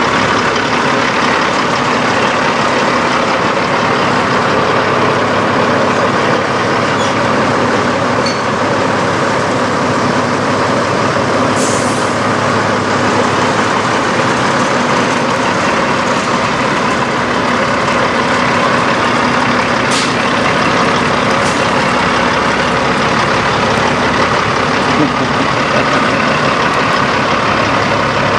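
Peterbilt semi-truck's diesel engine idling steadily, with a few short hisses near the middle.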